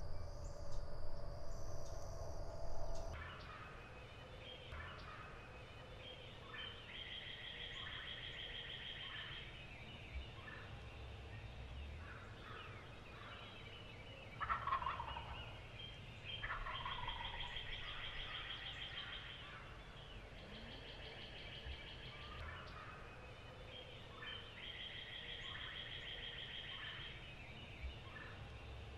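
Osceola wild turkey gobbling several times, the loudest gobble about halfway through. A steady, louder high ringing sound fills the first three seconds and then stops suddenly.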